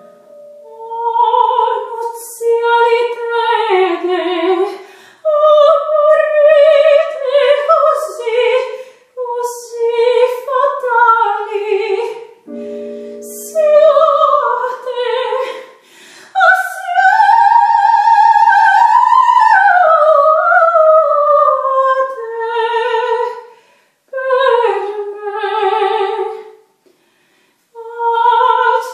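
A female operatic voice, a soprano, singing an aria in phrases with a wide vibrato, climbing to long high notes in the middle. Short piano chords sound between phrases, right at the start and about halfway.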